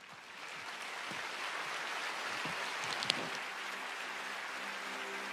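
A large church congregation applauding, swelling up over the first second and then holding steady, with a short high cheer from the crowd about three seconds in.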